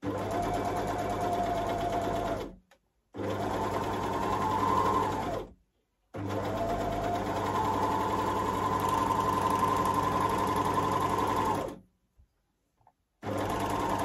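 Juki MO-2500 overlocker stitching and trimming a fabric scrap in four runs, stopping three times and starting again near the end; each run rises in pitch as it gets up to speed and drops as it stops. The machine is incredibly quiet for an overlocker.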